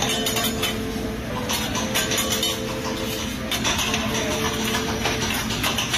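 Food sizzling on a hot hibachi griddle, with a metal spatula clinking and scraping against the steel plate.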